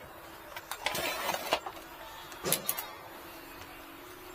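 Handling noises as a charger's power cord is connected up on the bench: light clicks and a stretch of rustling about a second in, and a sharper click about two and a half seconds in. A faint steady low hum sets in about three seconds in.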